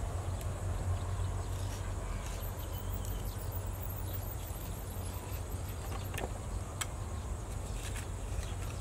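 A shovel digging into gravel and mud in shallow water, with a few sharp scrapes and knocks in the second half, over a steady low rumble.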